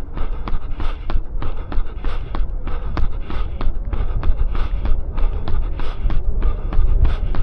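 A runner's footsteps striking the ground at a steady quick cadence, about three steps a second, over a steady low rumble.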